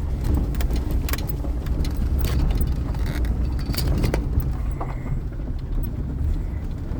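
A car's steady low rumble, with scattered sharp clicks and ticks over it.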